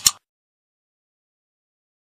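A mouse-click sound effect from a subscribe-button animation: two sharp clicks a split second apart, right at the start.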